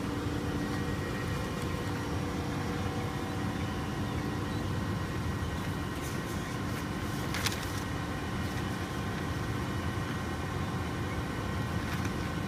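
Steady hum of running cooling-tower plant machinery, pump motors and fan, with several constant tones over a low rumble. A single brief click comes about halfway through.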